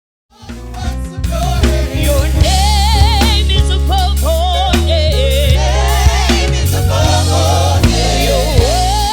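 Gospel music with singers and a choir over bass and drums, fading in from silence in the first second.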